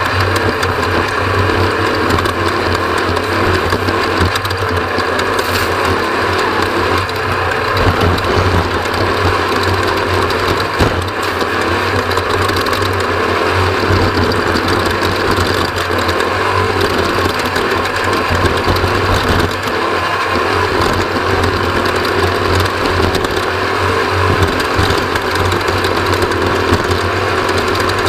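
Off-road race vehicle's engine running hard and steadily through a race lap, heard from on board, with a few brief knocks from the vehicle over the course.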